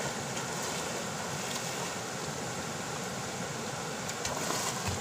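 Steady rushing noise of river water, with some wind on the microphone.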